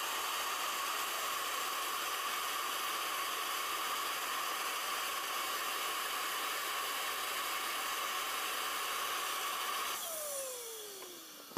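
Steady high turbine whine with hiss from parked Bell AH-1Z Viper attack helicopters. About ten seconds in it fades, and a falling whine winds down.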